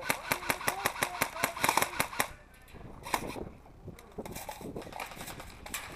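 Airsoft guns firing: a fast burst of sharp snapping shots, about nine a second, for roughly two seconds, then scattered single shots.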